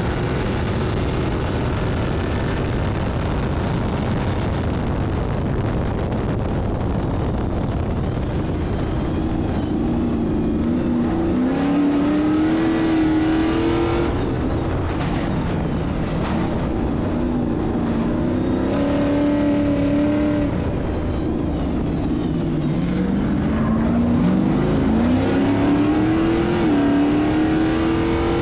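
Stadium Super Truck V8 race engine under hard acceleration, its pitch climbing again and again and dropping back at each upshift.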